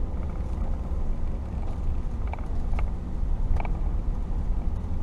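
Steady low rumble of an RV driving on a wet road, heard from inside the cab, with a few faint ticks in the middle.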